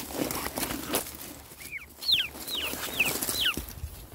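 Rustling of dry brush and leaves as the puppies scuffle, then a quail giving five short, sharp chirps, each falling steeply in pitch, about two a second.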